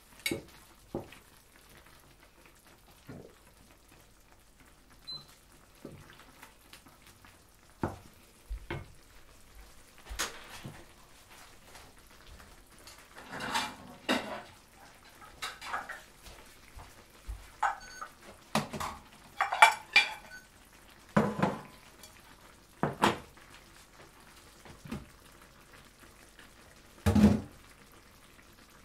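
Wooden spatula stirring a thick cream sauce in a frying pan: irregular knocks and scrapes of the spatula against the pan with wet sounds from the sauce, coming more often and louder in the second half, the loudest knock near the end.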